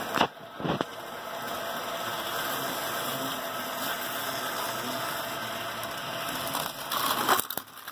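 HO scale model train running with a steady motor whir as it approaches. Near the end comes a short, louder clatter as it crashes into a stationary model steam locomotive.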